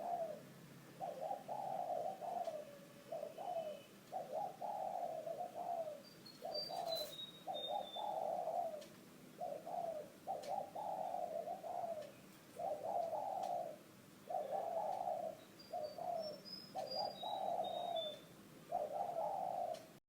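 Spotted dove (cu gáy) with the low 'thổ' voice cooing at a fast pace, one coo phrase after another with short gaps. Twice a small bird gives a high, falling series of chirps.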